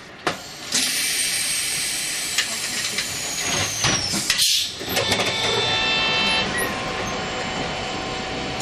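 Fukui Railway 770 series tram standing at a stop, heard from the driver's cab: a long hiss of compressed air with a faint high whistle that falls slowly in pitch, and a short loud burst of air about four and a half seconds in, typical of pneumatic door and brake gear.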